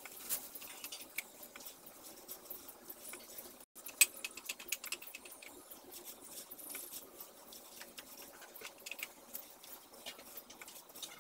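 Painting with a brush: the brush is drawn along a wooden panel and dipped into and worked against the rim of a metal paint can. The result is a string of irregular light clicks and scrapes, the sharpest about four seconds in.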